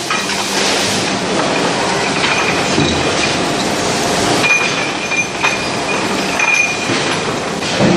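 Continuous metallic rattling and clanking of a forge line's automatic chain-conveyor billet feeder, with a thin high squeal coming and going in the second half.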